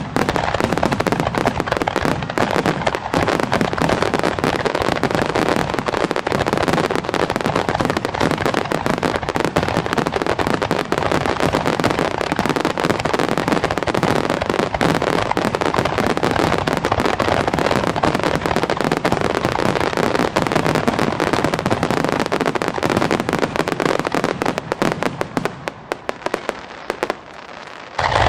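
Dense fireworks barrage: many aerial shells bursting and ground-level mines firing in a continuous rapid crackle of bangs too close together to separate. It thins out and drops in level a couple of seconds before the end.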